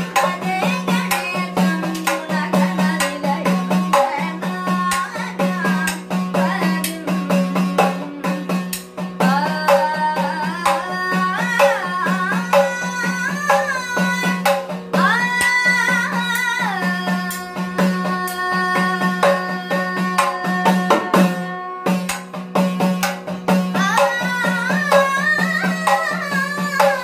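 Sopana Sangeetham, the Kerala temple singing style, sung by a boy's voice in bending melodic lines to his own idakka. The idakka, an hourglass drum, plays quick strokes under the voice over a steady drone.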